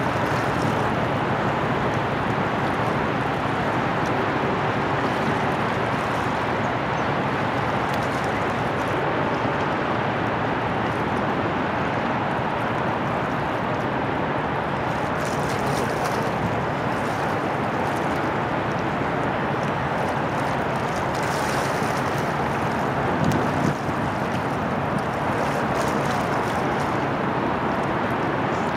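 Steady rushing outdoor noise, wind on the microphone, with a faint low steady hum underneath and one brief low bump about four-fifths of the way through.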